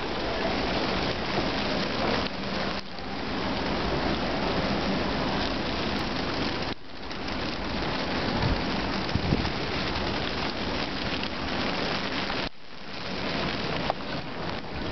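Blizzard noise: a dense, steady hiss of wind-driven snow and wind, with sudden dips in level three times.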